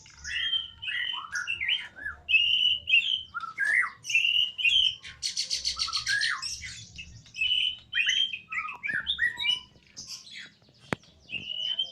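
Caged songbirds, among them a jalak (starling), calling busily in a lively mix of varied whistles and chirps. About five seconds in comes a fast buzzy rattle, and a single sharp click is heard near the end.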